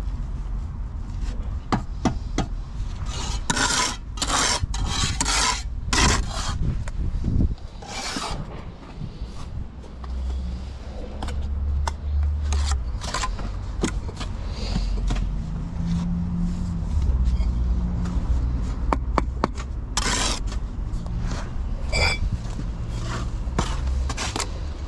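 Steel brick trowel scraping and slapping wet mortar on a mortar board and on bricks, with short knocks as bricks are set and tapped down, and a brief metallic ringing note near the end.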